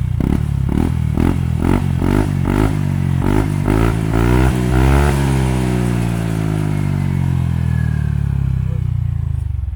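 Yamaha NMAX scooter's single-cylinder four-stroke engine through a JVT V3 adjustable exhaust set at its middle sound level, revved in a run of quick throttle blips. It then climbs in one longer rev about five seconds in and slowly falls back, settling to idle at the end.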